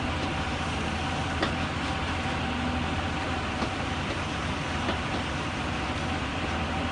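Hyundai crawler excavator's diesel engine running steadily under load as the boom works a forestry grapple, with a thin steady whine over the engine's low hum and a few faint knocks.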